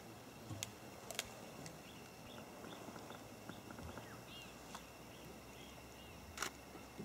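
Spotted hyena chewing on an impala carcass: a few sharp cracks at irregular intervals, the loudest about six and a half seconds in. Faint bird chirps repeat in the background.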